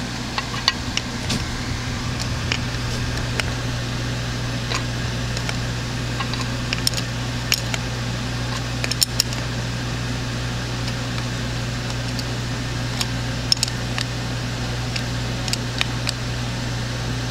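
Scattered small metallic clicks and taps of a wrench on the ignition coil's terminal nuts as the wire connections are snugged down, over a steady low hum.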